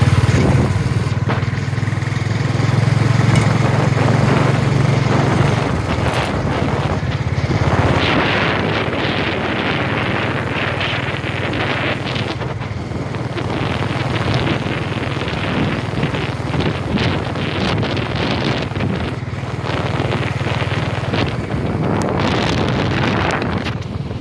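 A vehicle's engine running as it drives along a rough dirt track, with wind rushing over the microphone and short knocks from the bumps. The low engine hum is strongest in the first five seconds or so, then the rushing sound takes over.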